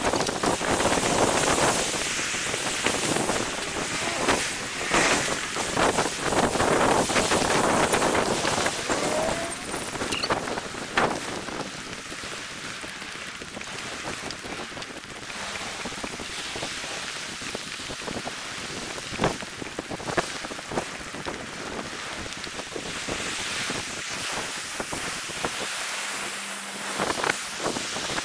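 Wind buffeting an action camera's microphone: an uneven rushing noise, louder for the first ten seconds or so and softer after, with scattered clicks.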